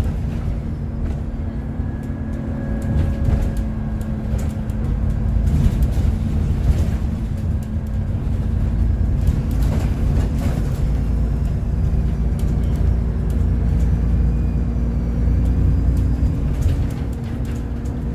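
Cabin sound of an Alexander Dennis Enviro 400 diesel double-decker bus with a Voith automatic gearbox on the move: a steady low engine and drivetrain rumble with a few rattles, and faint high whistling tones in the second half.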